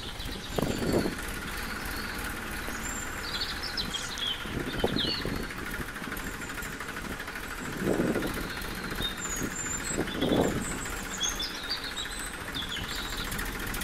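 Small electric gear motor of a cardboard RC tractor running steadily with a thin whine as it pulls its loaded trolley, while birds chirp and a few low thumps come and go.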